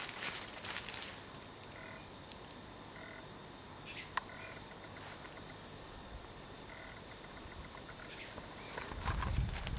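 An insect chirping high and steadily in a regular rhythm, about two pulses a second, with a few faint short calls in between. Low rustling thumps come in near the end.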